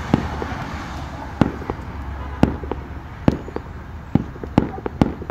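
Aerial fireworks going off: a string of sharp bangs and pops at uneven intervals, about one or two a second.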